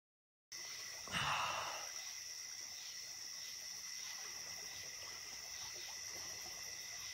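Steady high-pitched chorus of night insects, like crickets, trilling. A little after a second in, a brief louder burst of noise.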